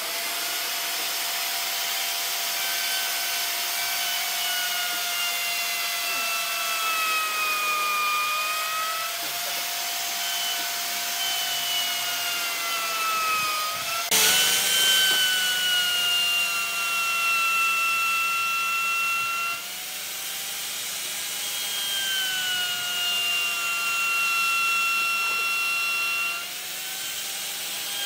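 Electric power tool working wood: its motor whines with an even pitch that repeatedly sags under load and recovers. About halfway through there is a sharp knock, after which the whine is louder and higher.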